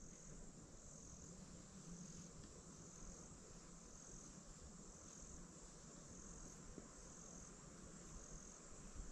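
Faint insect calls: a high, thin trill that pulses on and off about once a second over the quiet of still woodland.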